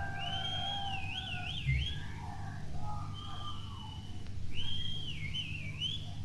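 Shrill whistling from the crowd: a phrase that rises, holds, then wavers up and down, whistled twice, over a steady low hum from the stage amplifiers.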